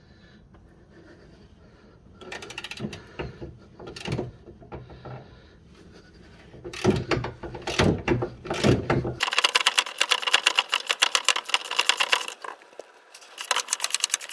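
Socket ratchet clicking as the nut on a car's front lower control arm bolt is undone. Slow, uneven strokes with scattered knocks come first, then a fast, steady run of clicks starts about nine seconds in and continues, with a short break near the end.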